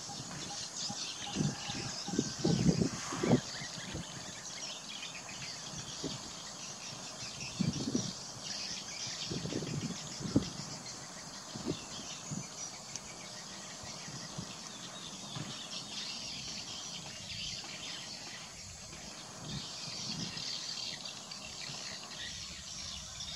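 Steady high chorus of insects and chirping birds in scrubland, broken by irregular rustles and snaps of brush, loudest in clusters about two, eight and ten seconds in.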